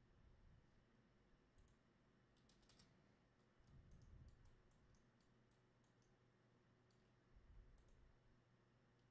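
Near silence with faint, scattered clicks of a computer mouse and keyboard. There are two brief low, soft swells, about four seconds in and near the end.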